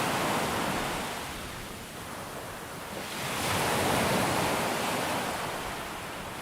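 Ocean surf washing onto the shore: one wave's rush dies away over the first two seconds, and a second swells up about three seconds in and slowly recedes.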